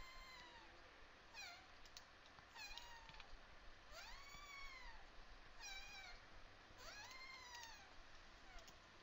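A cat meowing faintly, about six times, each call rising and then falling in pitch.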